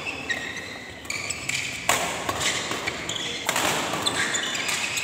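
Badminton doubles rally on an indoor court: sharp racket strikes on the shuttlecock and short, high shoe squeaks on the court floor, with spectators' voices rising in a reverberant hall about two seconds in.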